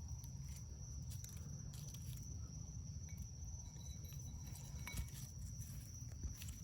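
A steady high-pitched chorus of night insects, with faint scattered clicks and rustles and a low rumble underneath.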